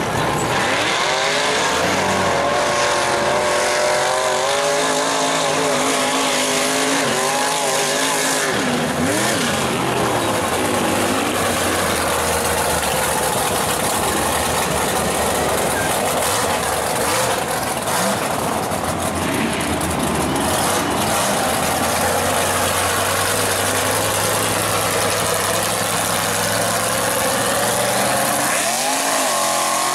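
Big-block V8 of a rear-engined Ford F250 mega mud truck running hard under throttle, its pitch rising and falling as it is revved, with repeated rev sweeps about a third of the way in and again near the end.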